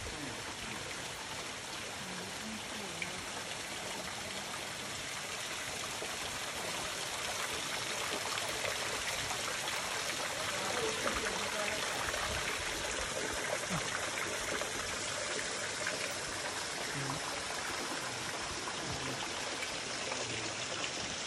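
Steady rush of running water from a mountain stream, getting a little louder after about eight seconds.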